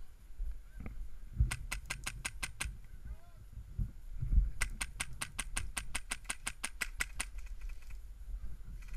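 PolarStar HPA-powered airsoft gun firing two full-auto bursts of rapid snapping shots, about seven a second: a short burst, then a longer one of about two and a half seconds.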